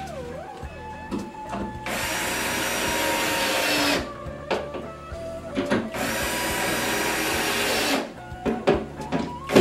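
Cordless power screwdriver running set screws into metal corner brackets on a cabinet rail. It runs in two bursts of about two seconds each, with a pause between, and small knocks as it is moved to the next bracket.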